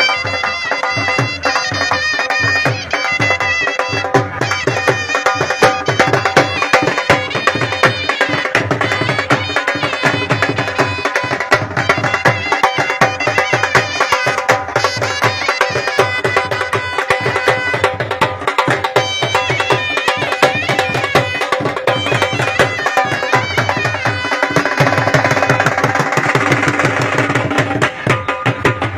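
Background music: traditional folk music with a fast, steady drum beat under a held melody line.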